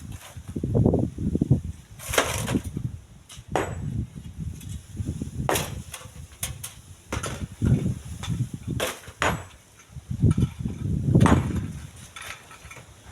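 Strong wind buffeting the microphone in irregular low gusts, with a scattering of sharp knocks every second or two.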